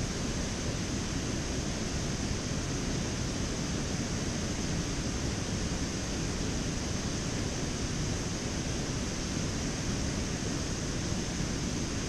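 Steady rushing noise of wind buffeting the microphone, with a constant hiss over a low, unsteady rumble.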